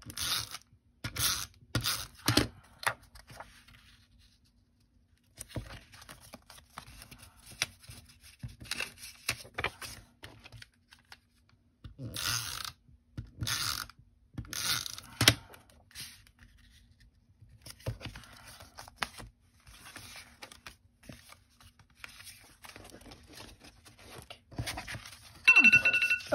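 Paper and cardstock panels being handled on a cutting mat: irregular rustling, sliding and short tearing-like strokes. Near the end a timer alarm goes off with a loud, steady beeping tone, marking the end of the timed session.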